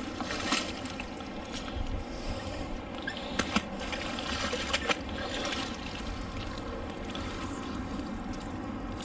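Water trickling and dripping off a wet fishing magnet and its rope, with a few sharp clicks of small metal scrap against the magnet as the catch is pulled off.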